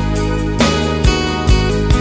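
Background music with a steady beat and no singing.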